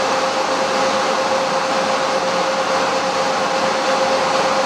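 Cooling fans of a 2 kW FM broadcast transmitter running while it puts out close to 2 kW: a steady, loud rushing noise with a steady tone running through it.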